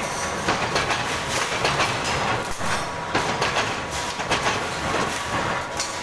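Power sheet-metal shearing machine running, with a steady mechanical rattle and irregular metallic clanks as aluminium sheet is fed through and sheared.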